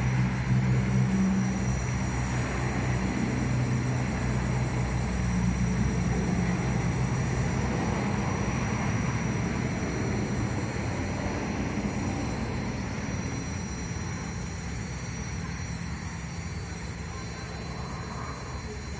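Electric bicycle's hub motor running with a steady whirring hum that slowly grows quieter.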